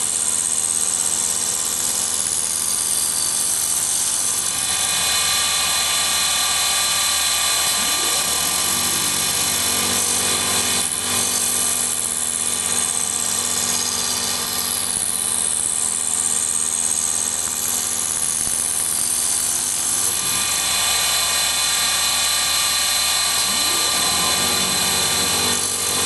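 Automatic wooden nail stick making machine running steadily, its motors and rotating cutter heads shaping wooden sticks with a constant multi-toned hum and whine. A high hiss glides down in pitch several times over the run.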